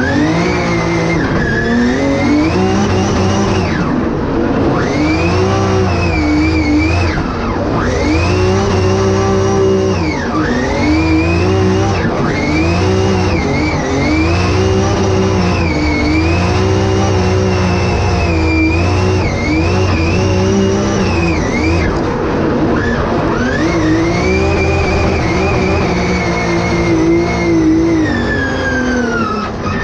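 Drift car's engine heard from inside the cabin, revving up hard at the start and then rising and falling every couple of seconds as the car is drifted through the corners, with tyre squeal under it.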